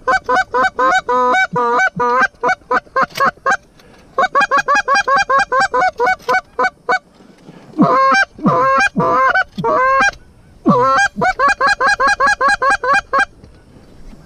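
Hand-blown goose call worked hard in fast runs of clucks, about six notes a second, in four bursts with short pauses between; in the third burst a few longer honks break and drop sharply in pitch.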